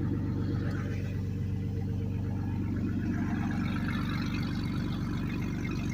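Jeep Grand Cherokee engine idling steadily after a cold start.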